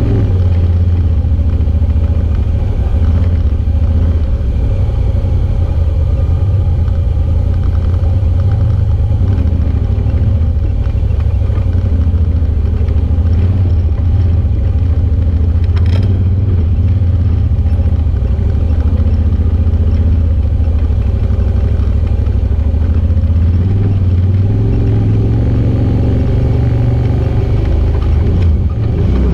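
Side-by-side UTV engine running steadily as the machine drives a rocky dirt trail, a deep even drone. One sharp click about halfway through.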